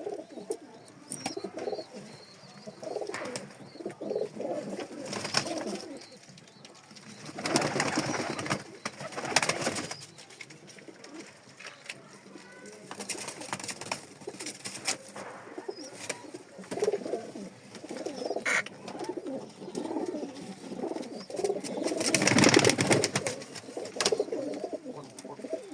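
Domestic pigeons cooing repeatedly in a loft, with two spells of louder, rustling noise about a third of the way in and near the end.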